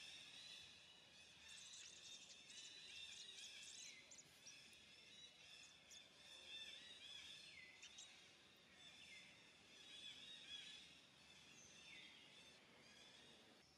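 Faint forest background of bird and insect calls: a busy high-pitched chorus of chirps, with a few calls that fall in pitch every few seconds.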